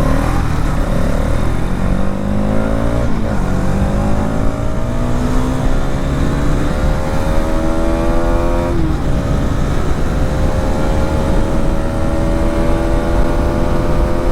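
Hero Xtreme 250R's single-cylinder engine accelerating under load. Its pitch climbs, drops sharply at two upshifts about 3 and 9 seconds in, then holds nearly steady and slowly rises again, over heavy wind and road noise.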